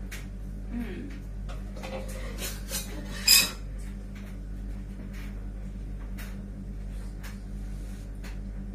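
A metal spoon knocking and scraping in a pan, with one sharp, ringing clang about three seconds in. A steady low hum runs underneath.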